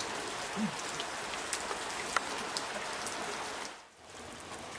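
Water dripping and trickling down a plant-covered rock face: a steady wet hiss with many scattered drop ticks. Near the end the sound drops away briefly and returns a little quieter.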